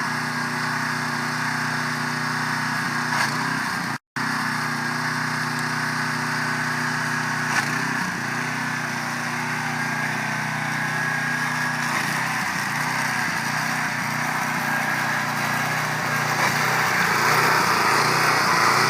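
A 2700 PSI gas-engine pressure washer running steadily, with the hiss of its high-pressure water spray. The sound cuts out for a moment about four seconds in, and the spray hiss grows louder near the end.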